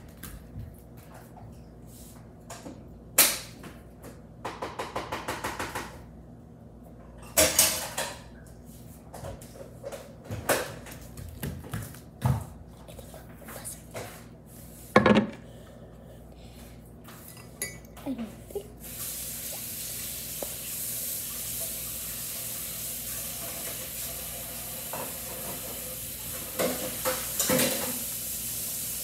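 Cups and utensils clinking and knocking against each other and the counter, including a short burst of rapid spoon-rattling like stirring early on. About two-thirds of the way in, a steady hiss starts and continues, with a few more clinks near the end.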